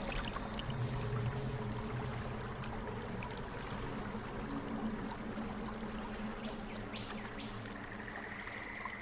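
Steady rushing noise like running water, with a faint low hum beneath it.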